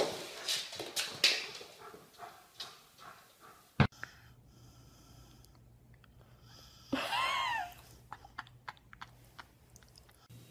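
Dogs at play: soft scuffling and knocks fading out over the first few seconds, a sharp click just before the middle, then quiet licking sounds with one short high squeal that rises and falls, a little past the middle.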